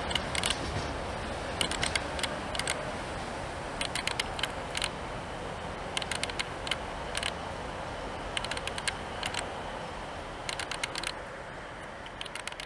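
Wheels of a diesel locomotive-hauled passenger train clicking over rail joints and points in quick clusters about every two seconds as the train pulls away, over a steady rolling rumble that drops away near the end.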